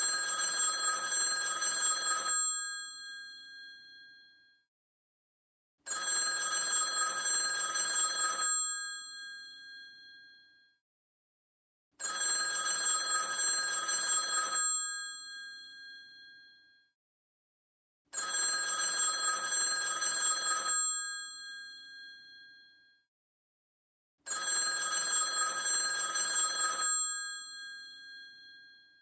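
Vintage telephone bell ringing in five rings, each about two and a half seconds long, spaced about six seconds apart. Each ring fades out over a couple of seconds before the next.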